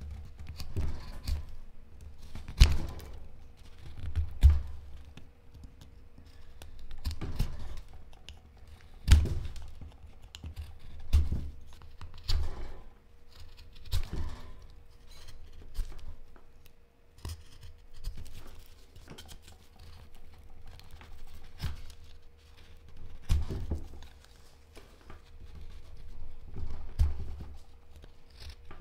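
Carving knife slicing into hard black locust (Robinia) wood: a series of short cuts, one every second or two, each with a dull knock.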